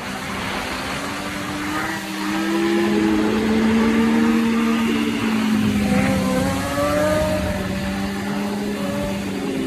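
Sport bike engine held at high revs through a wheelie, its pitch rising and falling a little with the throttle. It grows louder about two seconds in.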